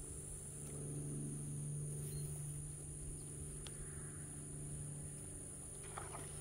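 Steady high-pitched trilling of insects such as crickets, over a low steady hum.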